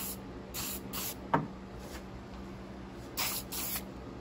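Aerosol shellac spray can (Zinsser Bullseye) spraying in a series of short hissing bursts, mostly in quick pairs, as primed spots are sealed. A single sharp knock comes about a second in, louder than the hisses.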